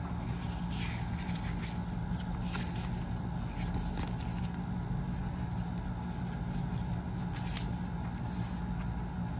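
Paper instruction booklets and inserts being handled and flipped through, giving soft, intermittent paper rustles and slides over a steady low background hum.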